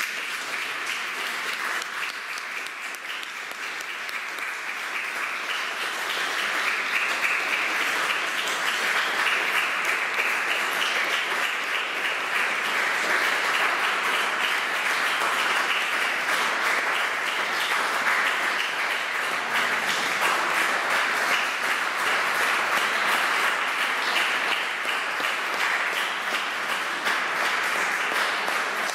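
Audience applauding: dense, steady clapping that swells a few seconds in and holds.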